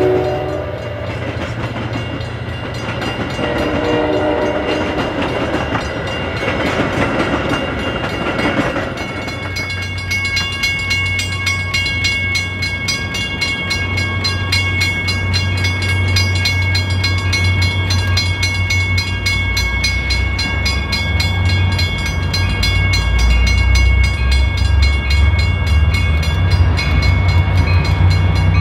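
A train horn gives two short blasts, one at the start and one about four seconds in, over the rolling of passing Metra bilevel passenger cars. From about nine seconds in, an approaching Metra EMD F40PH diesel locomotive runs with a low engine drone and a steady high whine. It grows louder as it nears.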